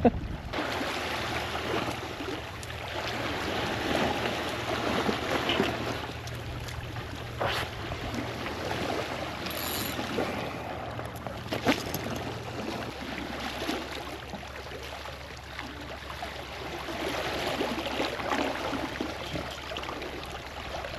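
Seawater sloshing and lapping in a steady wash that swells and eases, with a few sharp clicks about 7, 10 and 12 seconds in.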